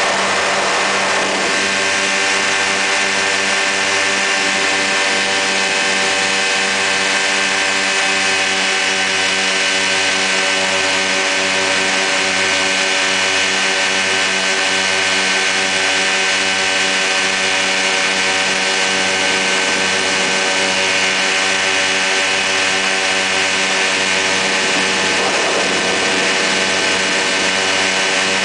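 Quicksilver MX ultralight's two-stroke engine and pusher propeller running at a steady cruise in flight, heard from the open seat. It holds an even pitch under a rush of wind noise, which swells briefly near the start and again near the end.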